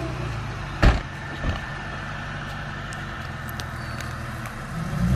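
Mazda RX-8's rotary engine idling steadily, with a car door slammed shut about a second in and a smaller knock just after. The engine starts to rev up right at the end.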